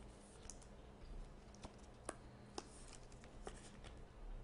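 Near silence with faint, scattered ticks and rustles of trading cards being handled in the fingers.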